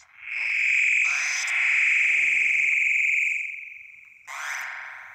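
Korg Monotron Delay analog synthesizer played on its ribbon keyboard: high notes with slides in pitch, held for about three seconds and then fading out, and a fresh note near the end that fades away.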